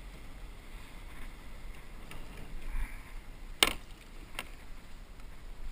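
Faint water and light wind noise around a fishing kayak as a hooked coho salmon is played alongside and the landing net is brought out. One sharp click or knock comes about three and a half seconds in, and a fainter one follows shortly after.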